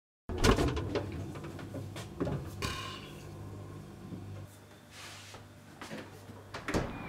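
Refrigerator door being opened, with a sharp click about half a second in, then a low steady hum and a few clicks and knocks of things being handled at the open fridge.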